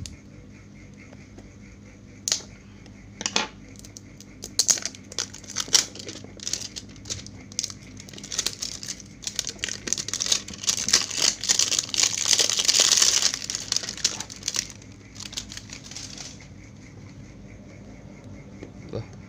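Plastic shrink-wrap on a smartphone box being split and peeled off by hand, crinkling and crackling. A few sharp crackles come early, the crackling is densest about halfway through, and it stops a few seconds before the end.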